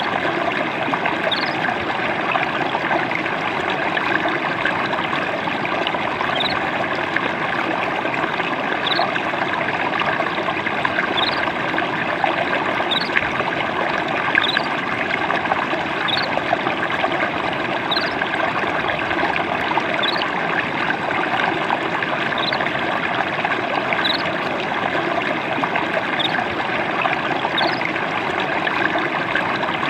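Stream water trickling and gurgling steadily, with a bird's short, faint rising chirp repeated about every two seconds.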